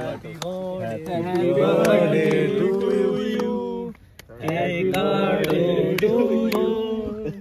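A group of men singing together, in two long phrases with a short break about four seconds in, with scattered hand claps.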